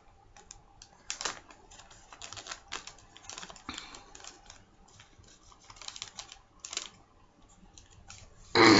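Scissors cutting open a plastic-coated paper mailer: a string of short, irregular snips, clicks and crinkles, with a louder burst near the end.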